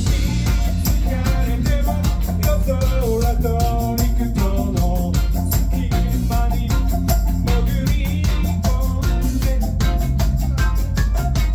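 Live band playing loud, with a horn section of trumpet and trombone carrying melodic lines over drum kit, electric guitar, keyboard and tambourine.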